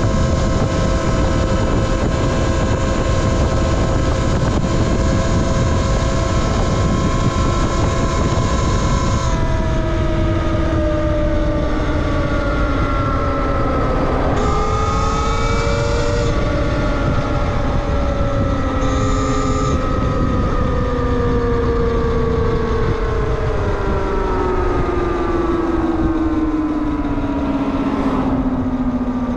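Talaria Sting R MX4 electric dirt bike's motor whining at a steady pitch while cruising, then dipping and rising in pitch as it slows and speeds up, and falling steadily near the end as the bike slows, over a constant rush of wind and road noise.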